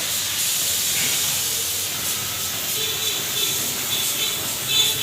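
Compressed-air spray gun hissing steadily while spraying lacquer finish.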